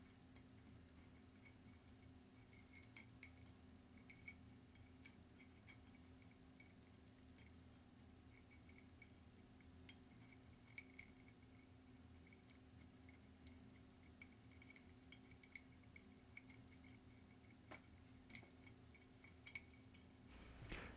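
Faint, scattered light clinks and ticks of small Christmas-light bulbs knocking against a glass wine bottle as they are pushed through a drilled hole, over a faint steady hum.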